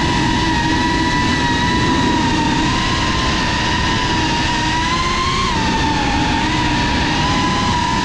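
FPV quadcopter's brushless motors and propellers whining at a nearly steady pitch over a rushing noise. The pitch rises slightly about five seconds in, then settles back.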